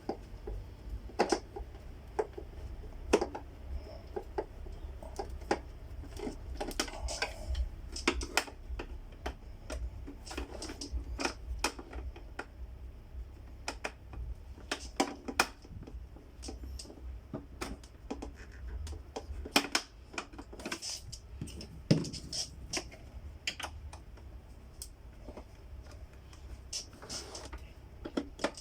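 Irregular clicks and knocks of the vacuum cleaner's plastic housing and parts being handled and worked on during disassembly, over a low rumble.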